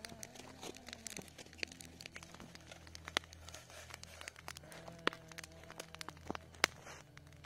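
Plastic bags crinkling as they are handled, with a wood campfire crackling and giving scattered sharp pops.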